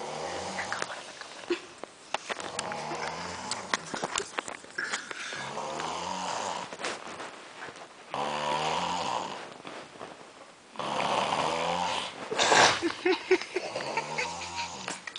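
Snoring: repeated drawn-out snores, each a second or two long, with one louder, noisier breath about twelve seconds in.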